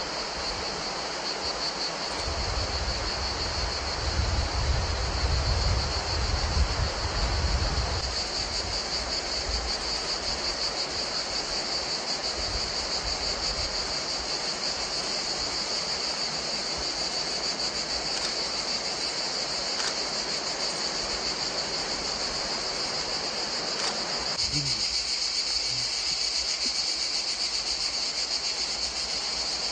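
Insects chirring in a steady, high-pitched chorus with a fast shimmer. For roughly the first eight seconds, wind rumbles on the microphone underneath.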